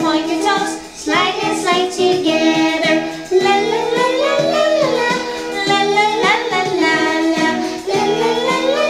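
Children's action song: sung vocals over an instrumental backing.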